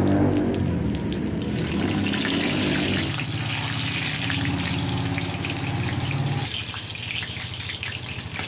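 Vegetables sizzling and crackling in hot mustard oil in a frying pan, over a low steady hum that stops about six and a half seconds in.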